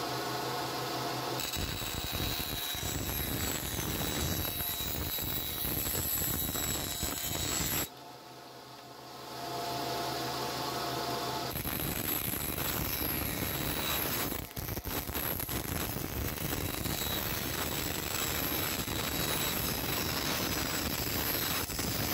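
Benchtop band saw running, its blade ripping a thin wooden board in two passes. The first cut starts about a second and a half in and stops at about eight seconds; the saw then runs free with a steady hum. The second, longer cut starts at about eleven seconds and lasts to the end.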